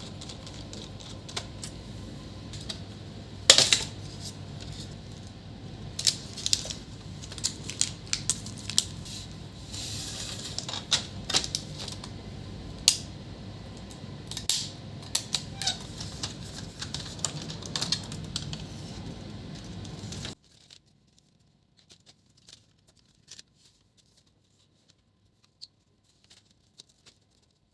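Irregular small clicks and taps of a screwdriver and the plastic laptop case as screws are taken out and parts handled. About twenty seconds in the background hiss drops away suddenly, and only a few faint clicks remain.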